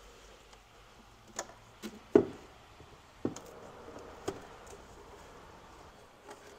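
Scattered clicks and knocks of hand tools and plastic engine-bay parts being handled as hoses are worked loose, the loudest knock about two seconds in.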